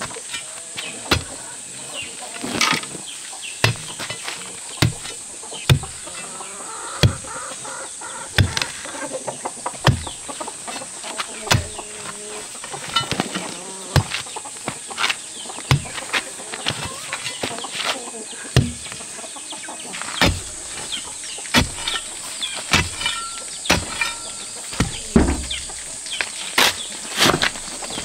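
A steel digging bar being driven down into hard-packed earth, striking about once a second, each blow a sharp thud with some crumbling soil. A steady high insect drone runs underneath.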